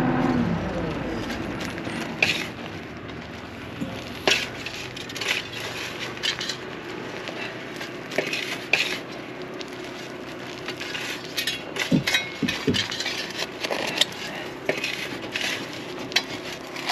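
John Deere 310 backhoe's diesel engine throttling down to idle within the first second, then idling low under intermittent scrapes and clinks of metal digging into dirt and rock.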